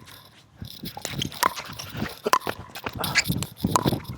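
Pickleball rally: paddles striking a plastic ball with sharp pops, among other short knocks.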